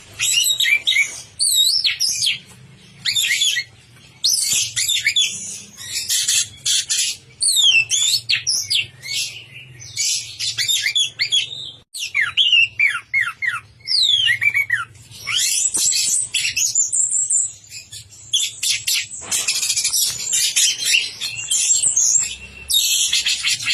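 Orange-headed thrush (anis merah) singing a long, fast, varied song of quick whistled phrases and sweeping notes, in bursts with short pauses. This is the heavy, sustained singing that bird keepers call 'gacor sampai teler'.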